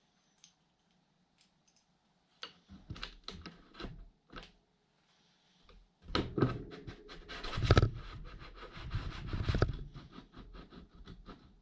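Scattered clicks and knocks, then, from about halfway through, a busier run of clicking, scraping and rustling as bicycle hub parts and tools are handled.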